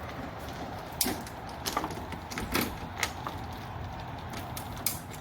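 Scattered light clicks and knocks of hands fitting a bolt-on wickerbill spoiler and its bolts and washers to a car's trunk lid, five or six short taps over a steady low background hum.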